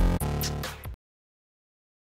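Electronic music with a heavy beat that cuts off abruptly about halfway through, then silence.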